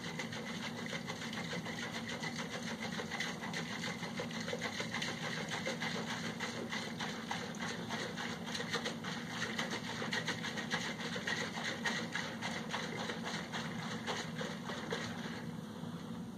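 Honey and hot water sloshing inside a capped one-gallon glass jug that is shaken rapidly back and forth to dissolve the honey, a quick, even rhythm of sloshes that stops near the end.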